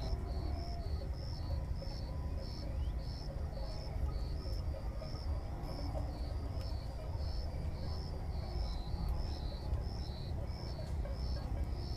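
Insect chirping in a steady, even rhythm, high-pitched and stepping between two close notes about three times a second, over a low steady rumble.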